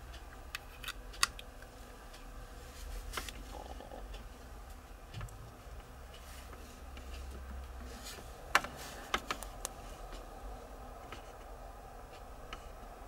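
Faint scattered clicks and taps of a small plastic device and its charging cable being handled, over a low steady hum.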